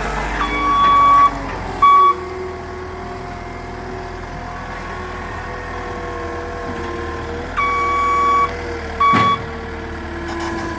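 A work vehicle's engine running, with loud high electronic beeps in two pairs, each a long beep then a short one. A sharp knock comes just before the last beep.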